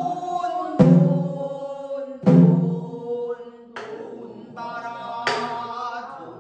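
Pansori singing with long held notes, accompanied by a buk barrel drum struck four times, about once every second and a half.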